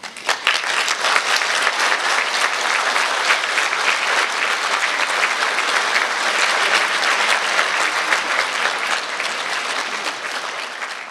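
Audience applauding in a hall: dense, steady clapping that starts abruptly and tails off near the end.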